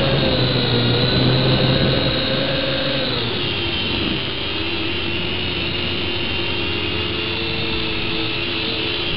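V686G quadcopter's motors and propellers whining steadily, heard through its own onboard camera. About three seconds in, the motors slow and the whine drops in pitch.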